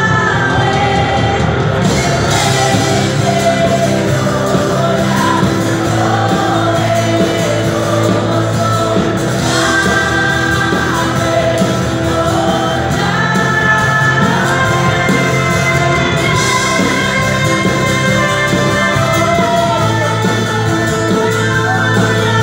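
Live worship band playing a Spanish-language praise song: several female singers lead the chorus over keyboard and electric guitar, without a break.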